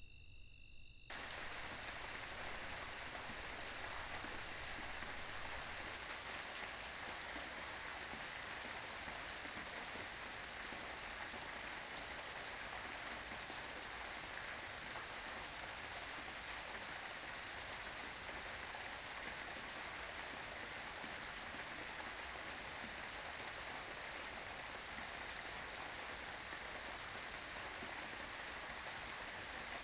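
Steady rain falling, starting abruptly about a second in and cutting off a high, steady insect trill like crickets.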